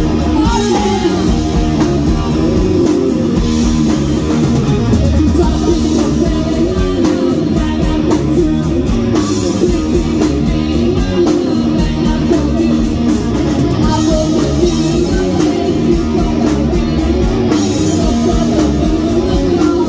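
Live rock band playing loud, with bass and electric guitar over a full drum kit.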